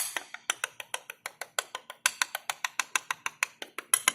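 Loose plastic centre cap on a 2017 Honda City's front wheel clicking rapidly against the wheel as it is rattled by hand, about six or seven clicks a second. The clicking comes from play between the cap and the wheel hub, the cause of the front wheels' annoying noise over cobblestones.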